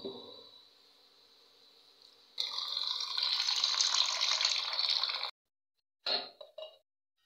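Tap water running into a stainless-steel bowl of rice for about three seconds, then cutting off abruptly. A short swish of water in the bowl at the start and two brief knocks near the end.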